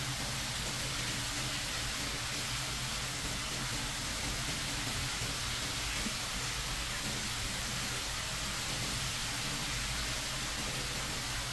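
Steady even hiss with a low hum underneath, unchanging throughout, with no distinct strokes or knocks standing out.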